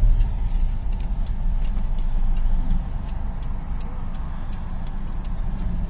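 A car's turn-signal indicator ticking steadily, about two clicks a second, over the low hum of the idling engine inside the cabin while waiting to turn.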